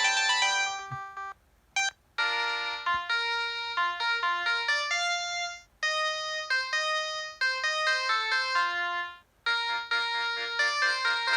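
Preloaded ringtones of a Samsung SCH-N356 mobile phone playing electronic melodies. One tune breaks off about a second in, a brief click follows, and a new tune plays; near the end another tune with pulsing repeated chords takes over.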